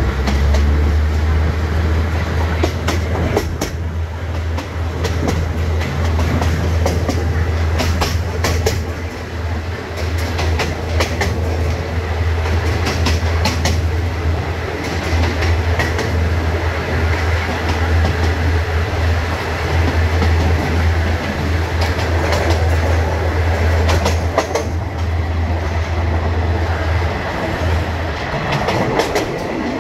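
Wheels of a moving passenger train clattering on the rails, with irregular sharp clacks as they pass over rail joints. A steady low rumble runs under it and drops away near the end.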